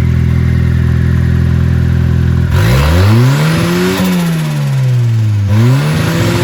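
Turbocharged GM 2.0 four-cylinder engine in a BMW E36 drift car running at a steady speed, then revving up about two and a half seconds in, easing off, and revving up again near the end.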